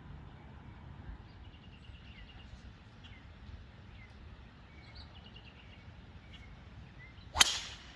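Birds chirping faintly over quiet open-air background, then, near the end, a single sharp crack of a golf club striking a ball.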